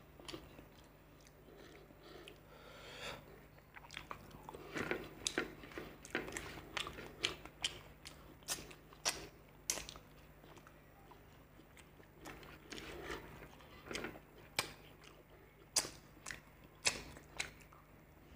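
Close-miked chewing and lip-smacking of a person eating rice and fish curry by hand, with many sharp mouth clicks and smacks, densest from about four seconds in.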